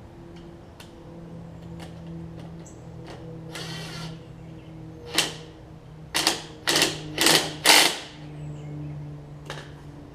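Scattered light clicks and a short rasp, then five sharp metallic clanks in quick succession between about five and eight seconds in, the sound of tools and metal parts being handled during repair work, over a faint steady low hum.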